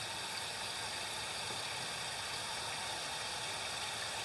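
Steady, even hiss with no distinct sounds standing out.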